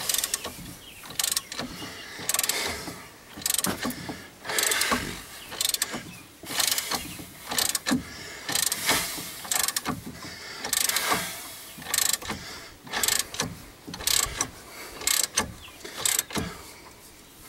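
Hand ratchet turning the screw of a C-frame ball joint press, its pawl clicking in short bursts about once a second on the return strokes. The worn, sloppy ball joint has broken loose and is being pushed out of the steering knuckle.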